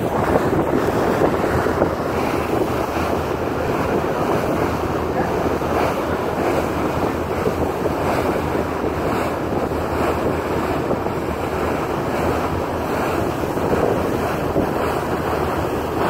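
Steady wind buffeting the microphone over water rushing past the hull of a moving ferry boat.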